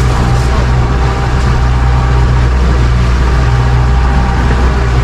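Boat engine running steadily: a constant low drone under a broad rushing noise.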